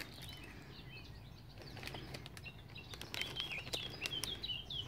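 Faint rustling and small clicks in dry grass and leaves. In the last two seconds there is a quick run of short, high, falling chirps.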